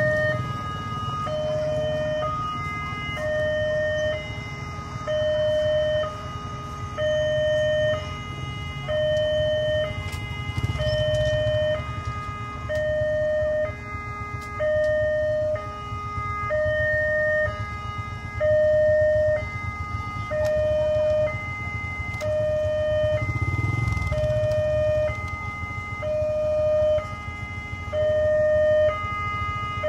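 Railway level-crossing warning alarm sounding with the barriers down: an electronic tone pulsing steadily about once a second, with higher tones stepping in between.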